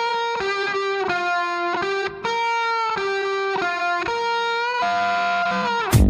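Instrumental background music: a single melody line of held notes that change pitch about twice a second, some sliding into the next.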